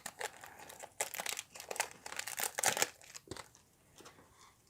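Foil wrapper of a Pokémon TCG booster pack crinkling as it is opened and handled: a dense run of crackles that thins out after about three seconds.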